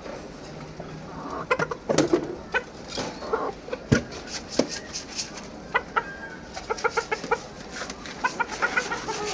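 Caged birds calling in short pitched notes, some in quick runs of several notes, mixed with sharp clicks and taps.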